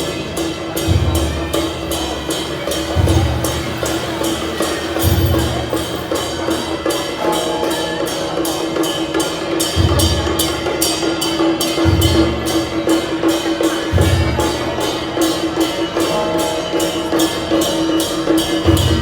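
Temple procession percussion band: a big drum struck in heavy beats every one to two seconds, over fast, even metal clashes of about four a second and a steady held tone.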